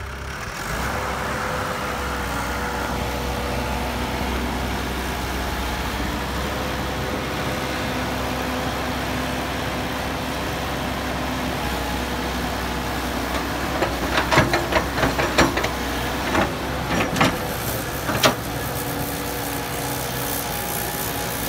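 Caterpillar hydraulic excavator's diesel engine running steadily while it digs and swings a loaded bucket, with a burst of knocks and clatter about two-thirds of the way through.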